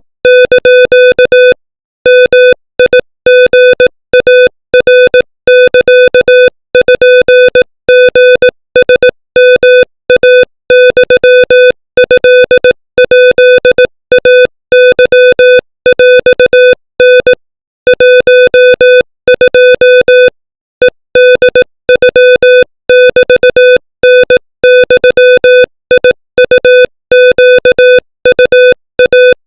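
Morse code sent at 25 words per minute as a buzzy beep keyed on and off in rapid dots and dashes, with short gaps between characters and words. It spells out Thai text in the Thai Morse alphabet.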